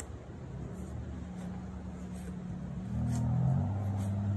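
A low, steady engine hum, like a motor vehicle running nearby. It grows louder and shifts pitch about three seconds in.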